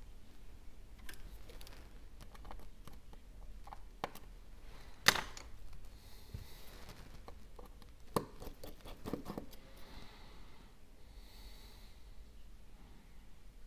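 Small metal repair tools clicking and tapping against an iPhone's internals during disassembly: a few scattered sharp ticks, the loudest about five seconds in.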